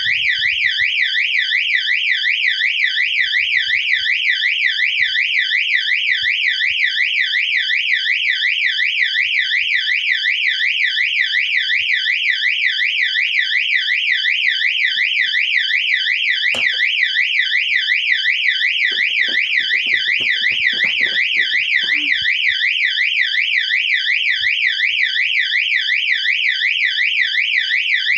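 Electronic fire alarm siren sounding continuously, its pitch warbling rapidly up and down several times a second without a break.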